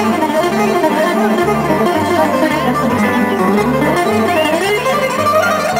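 Live Greek folk music in an instrumental passage between verses: a bowed string instrument plays a sliding, ornamented melody over plucked string accompaniment and a repeating bass line.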